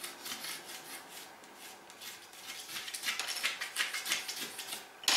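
Light metallic clicks and ticks from a Quangsheng No.62 low angle jack plane being set by hand at its blade adjustment, growing busier after about halfway. A single sharper knock comes near the end.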